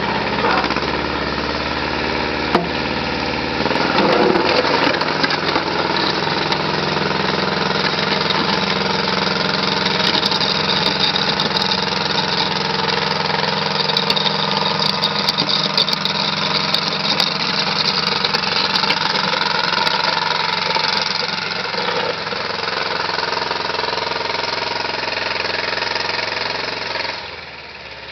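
Diesel engine of a 1973 Kubota L185DT 4x4 compact tractor running steadily, its level dropping near the end.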